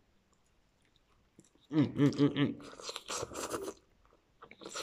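A person eating instant noodles off chopsticks: a short hum in the voice about two seconds in, then noodles slurped in through the lips and chewed, with another slurp near the end.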